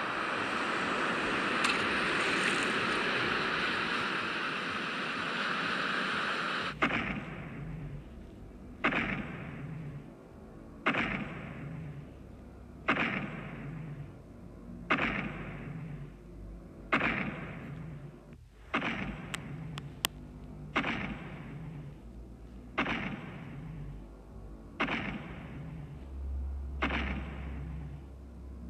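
Ocean-surf sound effect that cuts off suddenly about seven seconds in. It is followed by a giant-monster footstep effect: a heavy boom about every two seconds, each one dying away.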